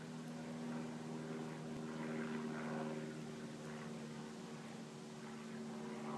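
A steady, low mechanical hum made of several held tones, with a faint hiss rising and falling over it.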